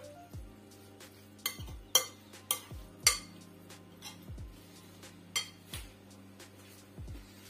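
A spoon clinking and scraping against a glass bowl as rice is mixed, a handful of sharp clinks loudest between about one and a half and three seconds in. Background music with deep falling bass beats plays under it.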